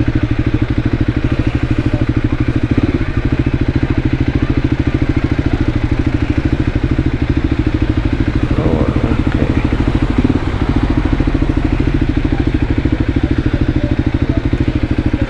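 Voge 300 Rally's single-cylinder engine running steadily at low revs, with a fast, even exhaust beat.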